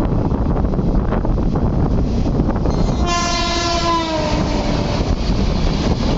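Electric locomotive's horn sounding for about two seconds as an oncoming train passes on the next track, its pitch sagging as it goes by. Underneath, the steady rumble and rail clatter of the moving passenger train it is heard from.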